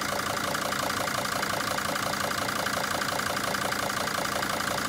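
Mercedes Sprinter T1N five-cylinder common-rail diesel idling steadily with a regular diesel clatter. It is running on Liqui Moly Diesel Purge drawn from a can during a fuel-system flush.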